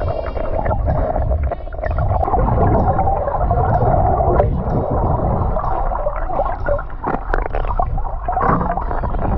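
Stream water heard through an underwater camera: a steady, muffled gurgling and rushing of moving water and bubbles around the submerged housing, with a few sharp knocks in the middle, likely from stones on the gravel bed being disturbed as hands work along the bottom.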